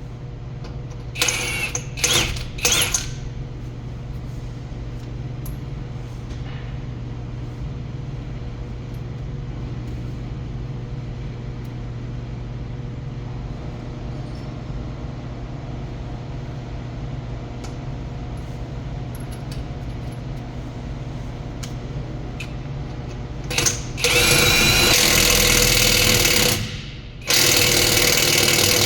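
Hercules 20V 3/4-inch cordless impact wrench hammering: three short bursts about a second in, then two long runs of a few seconds each near the end. A steady low hum runs underneath.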